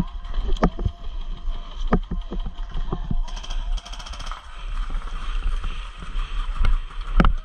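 Airsoft gunfire: scattered sharp pops, with a rapid rattling burst lasting about a second a little after three seconds in. A steady low rumble runs underneath.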